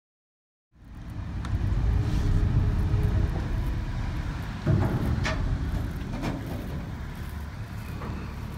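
Low, steady rumble of a passenger ferry's engines coming alongside a pier, cutting in from silence about a second in, with a few short knocks over it.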